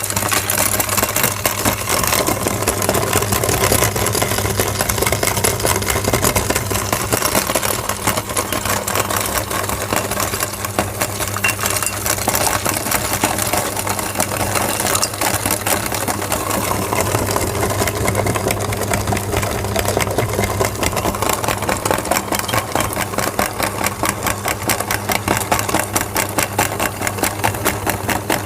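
Electric meat grinder running steadily, its motor humming while it crunches through wax crayons with a dense, rapid crackle.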